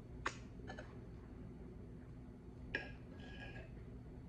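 Quiet room with a few faint clicks from eating at a table, and about three seconds in a light clink of tableware that rings briefly.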